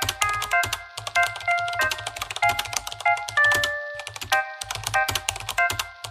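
Rapid computer-keyboard typing clicks, a title-typing sound effect, over background music: a simple tune of short high notes stepping between pitches, with a low pulsing beat.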